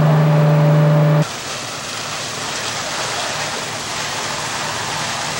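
Steady drone of fire-apparatus engines running, which cuts off abruptly about a second in. A steady rushing hiss of hose streams spraying water follows, with a faint engine hum beneath.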